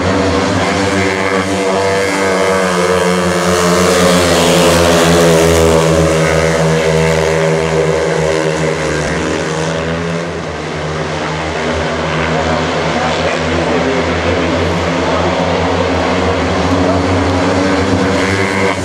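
Three speedway bikes' single-cylinder 500 cc methanol engines running flat out in a race. Their exhaust notes overlap and rise and fall as the bikes pass through the straights and bends, dipping briefly about ten seconds in.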